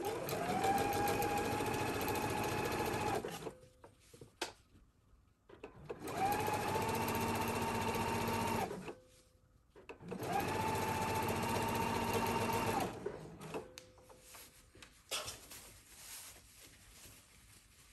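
Sewing machine stitching a seam in three runs of about three seconds each. At each start the motor's whine rises to speed, holds steady, then stops abruptly. Short quiet pauses with small clicks fall between the runs.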